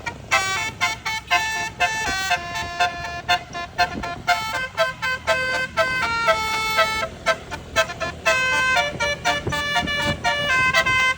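Bus telolet air horn with 18 trumpets playing a fast tune of short blasts and some longer held notes, several pitches sounding together.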